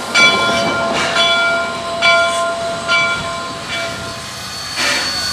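Steam locomotive bell ringing, about one stroke a second, over the steady hiss of the engine, with a short louder gust of steam near the end.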